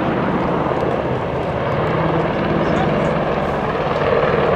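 AgustaWestland Apache AH1 attack helicopter flying past, its rotor blades beating fast and steadily over the engine noise, growing a little louder near the end.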